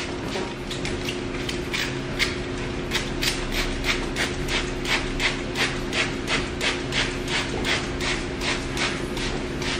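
Trigger spray bottle spritzing water onto curly hair in short hissing squirts. They are sparse at first, then come in a quick even run of about three a second from a few seconds in.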